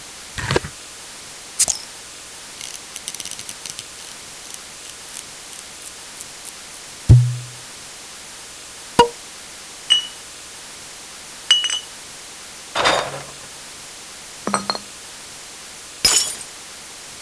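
A run of separate short can and bottle sounds: clinks, taps and knocks, some with a brief ring, one after another with short pauses between them.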